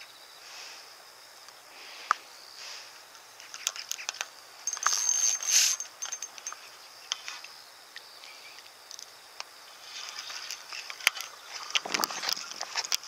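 Spinning reel and rod working a hooked bass on light line: scattered ticks and clicks, with a brief high whirring burst about five seconds in and busier clicking and handling near the end, over a steady high insect buzz.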